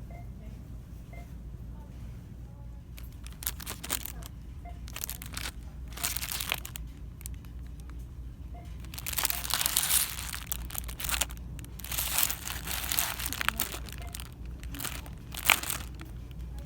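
Packaging crinkling as a product is handled, in irregular bursts that are loudest about nine to ten and twelve to thirteen seconds in, with a sharp click near the end. A steady low hum runs underneath.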